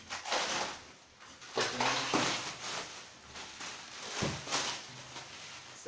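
Plastic stretch-film wrapping on a parcel crinkling and tearing as it is pulled off by hand, in several irregular rustling bursts.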